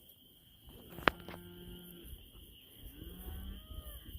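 Cattle mooing: a low moo lasting about a second, starting about a second in, and a shorter one near three seconds. A sharp click sounds just as the first moo begins.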